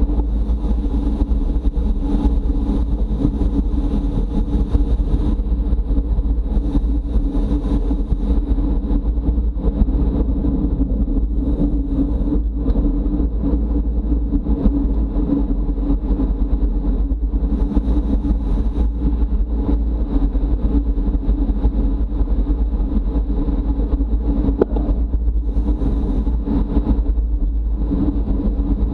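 Steady wind rush and road rumble on a camera carried on a racing bicycle at speed, with a heavy low rumble and a steady hum throughout.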